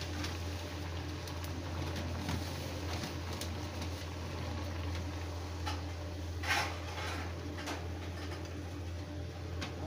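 Hot oil sizzling and crackling around an aloo puri deep-frying in a kadhai, with scattered pops and a louder burst of crackle about six and a half seconds in. A steady low hum runs underneath.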